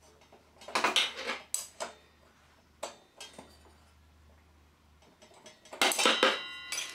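Metal spanners clinking and rattling against a table saw's blade flange nut and bolt head as the blade bolt is tightened. The clicks come in a cluster about a second in, a few single clinks after that, and a louder cluster near the end with a short metallic ring.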